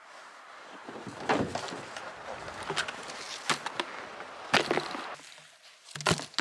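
Footsteps on snowshoes crunching through deep snow, a step about every second or so at an uneven pace.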